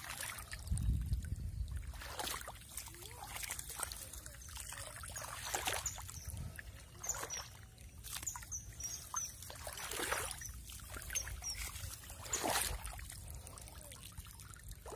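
Shallow muddy water in a flooded rice paddy splashing and trickling: a run of short, separate splashes every second or two over a low water hiss.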